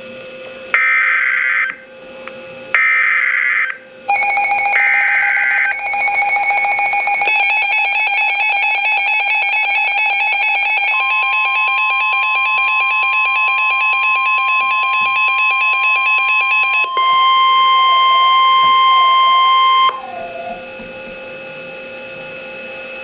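Emergency Alert System tornado-warning alert. Three short screeching data bursts come first. Then a loud buzzy alarm tone starts, joined by a steady beep-like attention tone, with a wavering tone near the end, before it all cuts off to a low hum.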